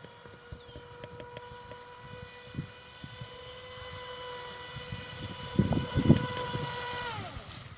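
Black Marlin RC boat's electric motor running on a 3S battery: a steady high whine that holds one pitch, then drops away near the end as the throttle comes off. A few low thumps, loudest just before the whine falls.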